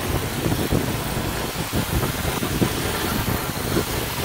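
Snow blower engine running steadily, with irregular low thumps over it.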